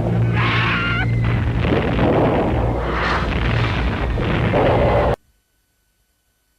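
Loud rumbling and blasts of explosions over a steady low drone, cutting off abruptly about five seconds in.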